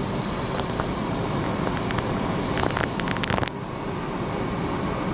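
Steady rushing noise of a gas burner on high flame under a wide pan of broth at a rolling boil. A quick run of sharp clicks and pops comes about two and a half to three and a half seconds in.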